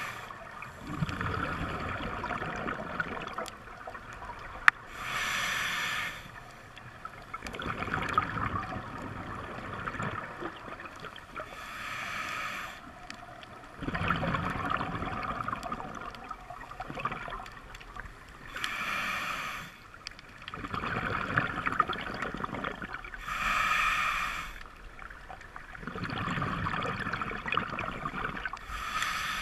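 Scuba diver breathing through a regulator underwater: a short hissing inhale about every five to six seconds, alternating with a longer, lower rush of exhaled bubbles.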